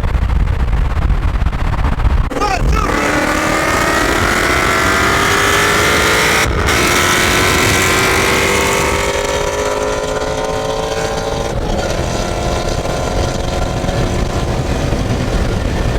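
Car engine accelerating hard through the gears with heavy wind and road rumble. The revs climb steadily, drop at an upshift about six and a half seconds in, climb again, and drop at another shift near twelve seconds.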